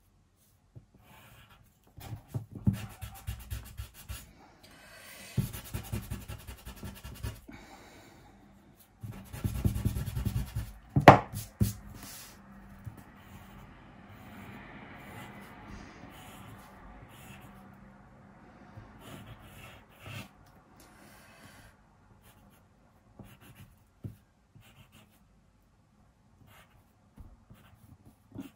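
Pencil sketching on paper: bursts of scratchy strokes, with one sharp tap about eleven seconds in, then lighter, fainter strokes and small clicks.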